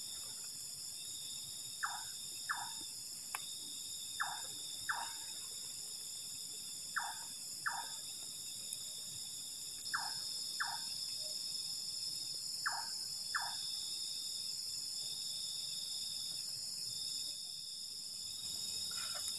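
Night insect chorus of crickets, a steady high-pitched trilling throughout. Over it comes a short squeak falling in pitch, heard in pairs about every three seconds, six pairs in all.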